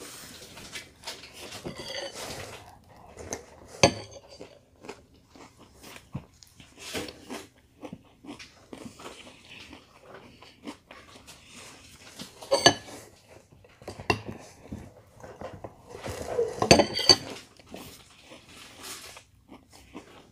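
Crunching and chewing of Cheerios cereal in milk, with a metal spoon clinking against a glass bowl. Three sharp clinks stand out, about 4, 12 and 17 seconds in.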